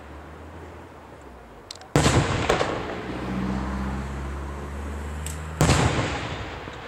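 Aerial fireworks bursting: two loud bangs about three and a half seconds apart, each trailing off in a rumble, with smaller cracks around them. A low steady hum runs between the bangs.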